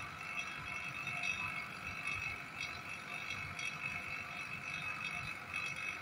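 Refrigeration vacuum pump running steadily with a constant whine, evacuating air and moisture from the refrigerator's sealed system through a manifold gauge set opened fully.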